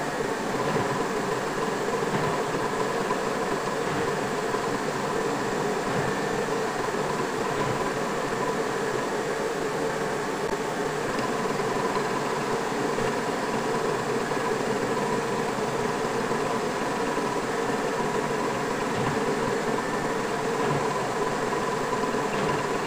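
Metal lathe running steadily with an even mechanical hum and whine, its cutting tool turning the end of a steel bolt head held in the chuck.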